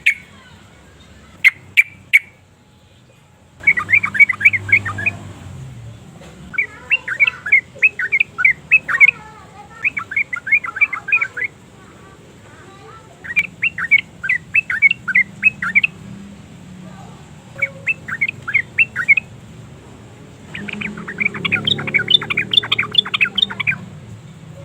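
Yellow-vented bulbul singing: repeated phrases of rapid, sharp chattering notes, each phrase lasting one to three seconds with short pauses between, about seven phrases in all.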